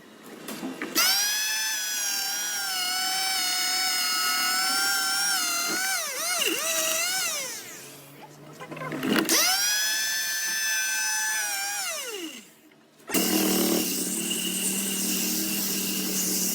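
Small high-speed electric power tool motor whining at a steady pitch, dipping briefly as it bogs under load, then stopping. It starts again and winds down about twelve seconds in. A different steady, noisier machine sound with a low hum follows near the end.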